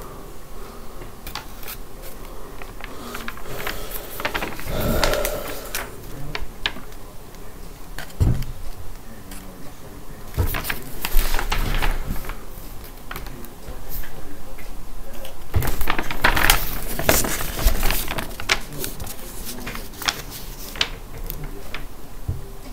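A large sheet of paper rustling and crinkling as it is handled and moved about, with many sharp crackles that come in louder spells.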